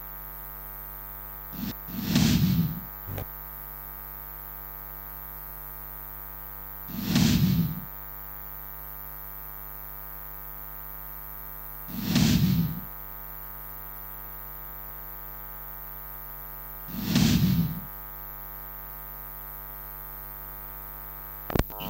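Steady electrical hum, with a swelling whoosh that comes four times, about every five seconds: the looping sound-effect bed under a breaking-news graphic.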